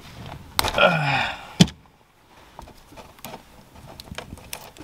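Clicks and rustles of a car stereo wiring harness being handled and connected, with one loud sharp click about a second and a half in and smaller clicks after it, plus a brief murmur of a voice just before.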